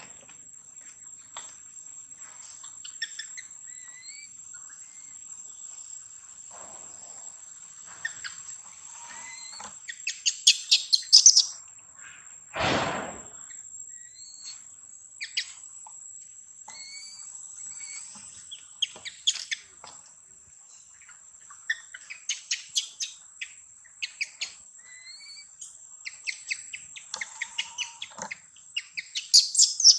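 Forest birds chirping in short calls and quick bursts over a steady high-pitched insect drone. About halfway through, one louder rushing noise lasts about a second.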